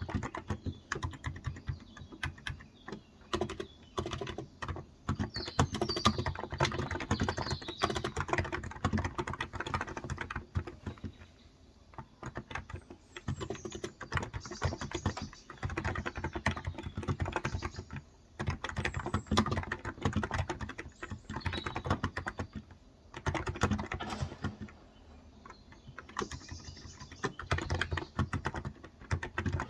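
Typing on a Cox Endeavor electro-capacitive tenkeyless keyboard with light 35 g keys: quick runs of soft key clacks that stop for short pauses a few times.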